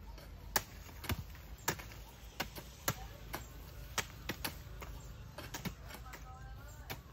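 A series of sharp knocks, about two a second and unevenly spaced, like blade strokes or taps on a hard surface.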